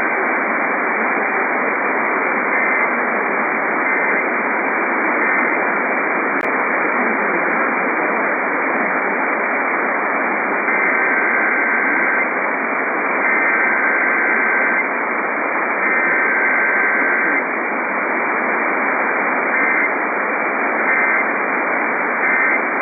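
Emergency Alert System SAME data bursts, each a pair of alternating tones, heard through heavy hiss from a radio receiver. A trio of short bursts comes first, then three longer header bursts about a second apart, then another trio of short end-of-message bursts.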